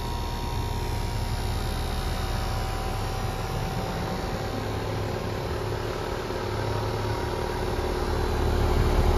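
Refrigeration vacuum pump running steadily, evacuating the heat pump system, which is pulled down to about 423 microns. The hum grows a little louder near the end.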